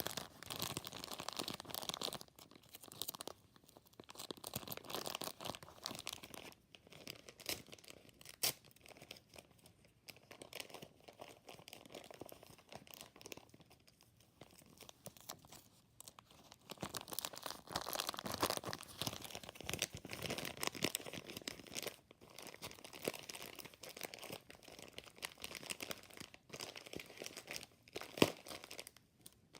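A stuffed plastic Ziploc bag being handled and crumpled, crinkling on and off, with sounds of tape tearing, and a sharp click near the end.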